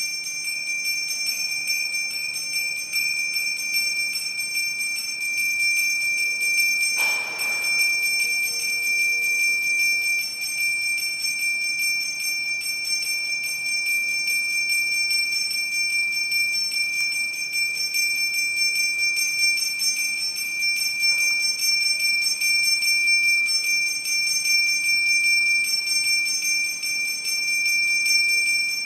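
Small brass hand bell rung rapidly and without pause during an aarti, giving a steady high ringing. A brief soft noise sounds about seven seconds in.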